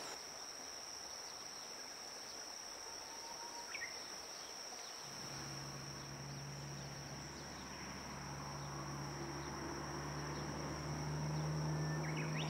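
Insects trilling in one steady, high-pitched drone, with a couple of short bird chirps. About five seconds in, a low steady hum joins and grows louder toward the end.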